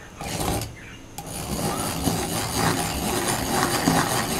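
Hand-cranked rotary egg beater, its gears and metal beaters whirring and rattling as they churn cake batter in a glass bowl. The churning gets louder and steadier about a second in.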